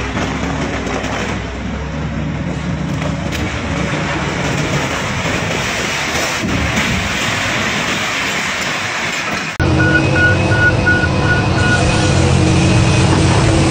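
Heavy demolition noise of a concrete tower being broken by a high-reach excavator and collapsing: a dense, steady rumble of breaking concrete and machinery. About two-thirds of the way in it cuts abruptly to a Cat excavator's diesel engine running steadily while it dumps soil, with a short run of quick high beeps.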